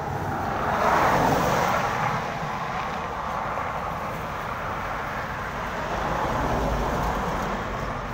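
Road traffic passing on a concrete road: a vehicle goes by close about a second in, its tyre and engine noise swelling and fading, and another passes more softly around six to seven seconds in.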